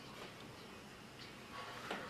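Faint footsteps crunching in snow: a few short crunches, the loudest near the end.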